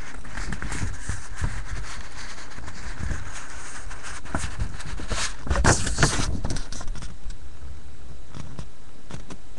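Handling noise of trading cards and their packaging being worked close to the microphone: scattered light clicks and taps over a steady hiss, with a flurry of louder knocks about six seconds in.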